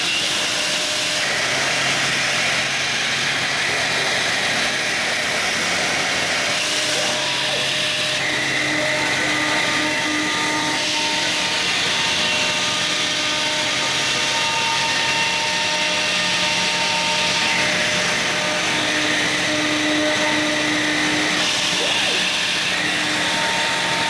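CNC nesting router cutting plywood with a chipbreaker router bit: steady spindle and cutting noise, with whining tones that come and go as the cut goes on.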